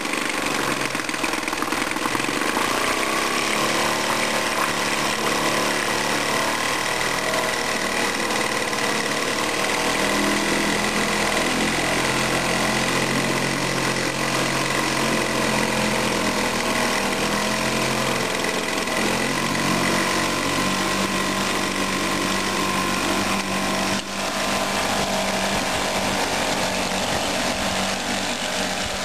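A 1997 Evinrude 2 HP single-cylinder two-stroke outboard running in a test bin of water, its engine speed rising and falling as the throttle is worked, then holding steadier in the last third. The propeller churns the water in the bin.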